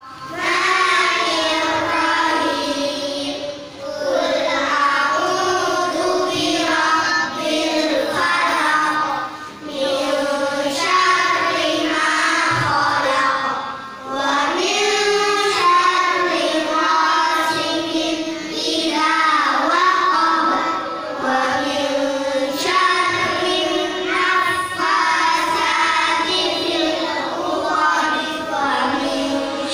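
A class of young children reciting the Qur'an aloud together in a chanted melody, in phrases of a few seconds with brief pauses for breath between them.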